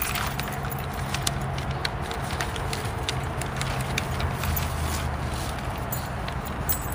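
Outdoor ambience of a small seated group with dogs: scattered light clicks and rustles of paper bulletins and jingling dog tags over a low steady hum.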